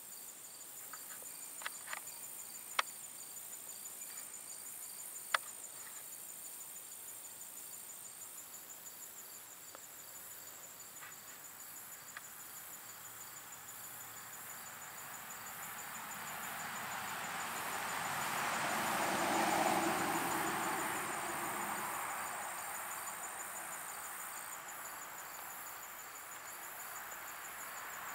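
Chorus of insects: a steady, rapidly pulsing high-pitched trill with fainter trills above and below it. A broad rushing noise swells to its loudest about twenty seconds in and fades again. A few sharp clicks come in the first few seconds.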